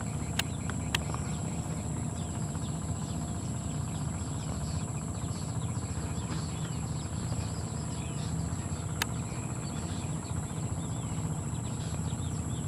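Rice-field ambience: insects trilling and small birds chirping over a low, steady rumble, with a few faint clicks.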